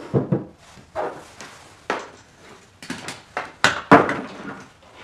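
Plastic Baofeng UV-5R handheld radio and its charging cradle being handled on a wooden table: a string of knocks and clicks, the loudest about four seconds in as the radio is stood on the tabletop.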